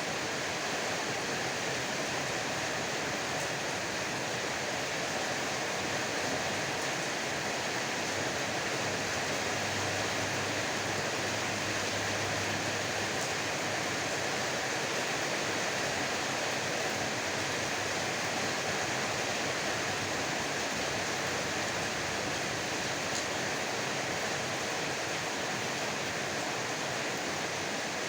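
Heavy rain pouring down steadily, an even unbroken hiss.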